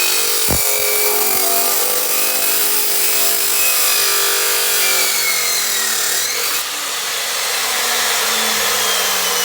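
Electric power tool cutting into a steel-toe safety shoe. It runs continuously, and its motor pitch wavers as it works.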